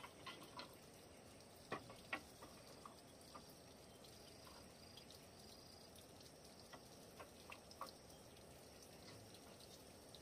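Thin bamboo slats knocking and tapping lightly against each other and the bamboo bed frame as they are handled: scattered soft clicks, with two sharper knocks close together about two seconds in and a few more taps near the end.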